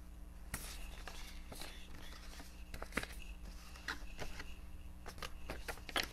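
Sheets of rub-on transfer paper rustling as they are leafed through and handled on a table, with irregular light clicks and taps, the sharpest about three seconds in and near the end.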